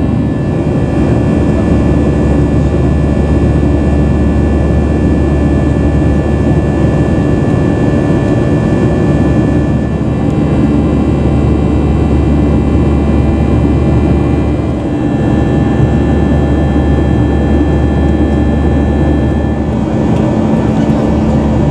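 Boeing 737-800 cabin noise during the climb: the CFM56-7B turbofans' steady drone with a whine of several steady fan tones, heard from a window seat beside the engine. The level dips briefly about fifteen seconds in.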